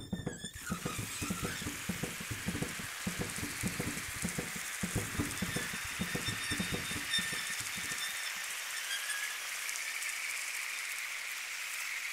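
Animation sound effect: a steady hiss with irregular low crackles and knocks underneath. The crackles stop about two-thirds of the way through, leaving the hiss alone.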